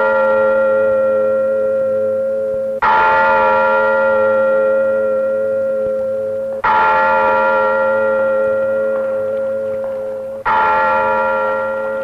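A large bell tolling one note, struck three times about four seconds apart, each stroke ringing on and fading slowly until the next.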